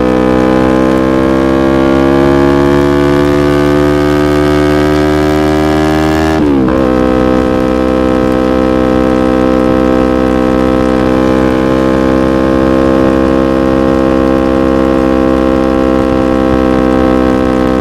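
Yamaha MT-25's parallel-twin engine running through a Shadux racing exhaust, held at a steady speed. Its pitch creeps up slowly, dips sharply about six and a half seconds in, then holds steady.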